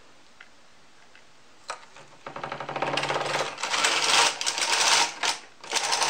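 The carriage of a Brother 260 bulky knitting machine pushed across the needle bed to knit a row: a fast clicking rattle of the needles running through the carriage, starting about two seconds in. It breaks off briefly near the end and then carries on.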